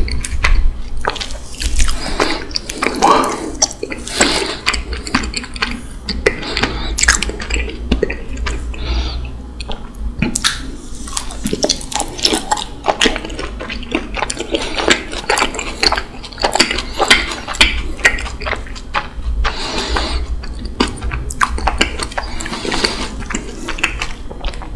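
Raw honeycomb chewed close to the microphone: wet, sticky mouth sounds with a dense run of small clicks as the wax comb and honey are worked in the mouth.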